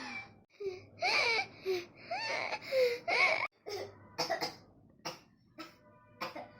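A person's sneezes coming out as cat-like meows: several loud mewing cries that rise and fall in pitch, followed by a string of short sharp sounds.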